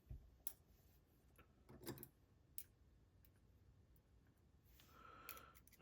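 Near silence broken by a few faint, scattered metallic clicks: small brass pins and tools being handled while the driver pins are taken out of a disassembled padlock.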